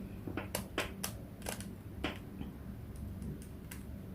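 Plastic 3x3 Rubik's Cube layers being twisted by hand: about five sharp clicks in the first two seconds, then a few softer ones, over a low steady hum.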